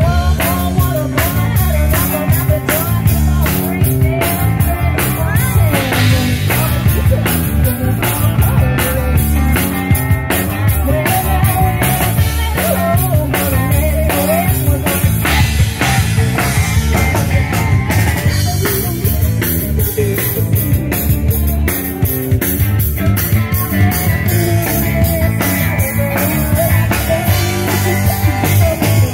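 Live rock band playing: electric guitars, keyboard and a drum kit keeping a steady beat.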